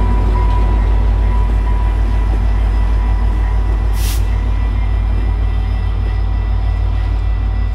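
VIA Rail F40PH diesel locomotive pulling a passenger train through a level crossing, its engine giving a steady low rumble. A brief hiss comes about four seconds in.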